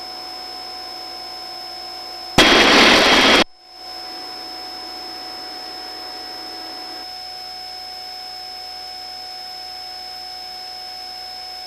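Helicopter crew intercom with its microphones closed: a low steady electronic hum of a few fixed tones, broken about two and a half seconds in by a one-second burst of loud, rushing helicopter engine and rotor noise as a crew microphone opens.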